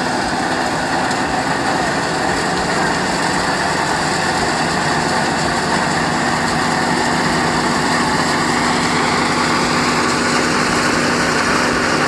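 Tractor-driven wheat thresher running steadily while sheaves of cut wheat are fed into it: a continuous machine rumble with a steady drone.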